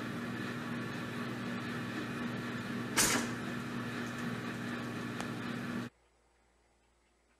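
A pop-up toaster springs up with one sharp clack about three seconds in, over a steady low hum, and a faint click follows a couple of seconds later. The last second and a half is near silence.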